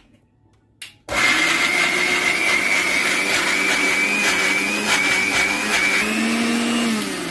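Electric mixer grinder with a stainless steel jar grinding drained chickpeas. It is switched on with a click about a second in and runs loud and steady with a high whine, then is switched off near the end and winds down, its pitch falling.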